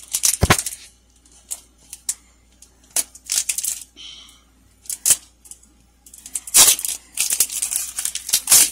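Foil Pokémon card booster pack being torn and peeled open by hand: sharp crinkles and ripping in scattered bursts, busiest over the last couple of seconds.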